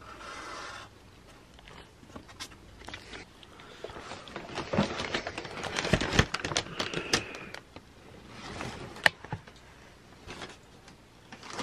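A paper fast-food bag crinkles and rustles as it is handled and opened, with a dense burst of crackling in the middle. A marker scratches briefly across a cardboard list right at the start.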